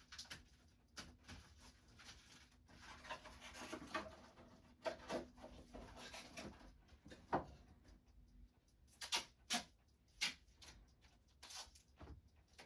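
Faint, irregular small clicks, taps and rustling of tools and watch parts being handled on a watchmaker's bench, with a few sharper single clicks in the second half.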